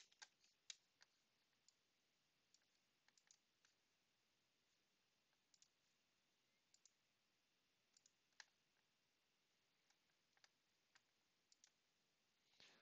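Near silence, broken by a dozen or so faint, short clicks at uneven intervals.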